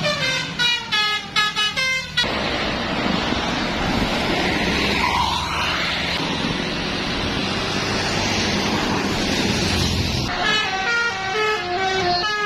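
Bus 'telolet' Basuri horn playing a quick tune of stepping notes for about two seconds, then a long stretch of steady rushing noise, then the horn tune again near the end.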